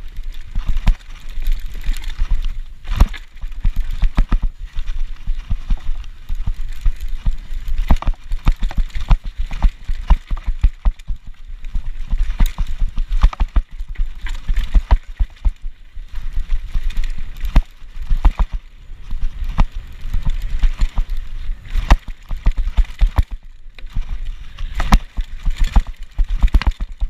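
Mountain bike riding fast down a rough dirt trail: a constant, irregular clatter of knocks and rattles as the bike hits bumps and roots, with wind rumbling on the microphone.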